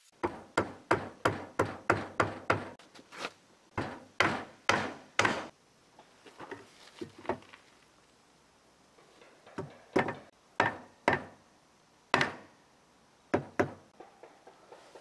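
A quick run of sharp knocks on wood, about three a second, for the first five seconds with a brief gap, then softer taps and a few scattered single knocks.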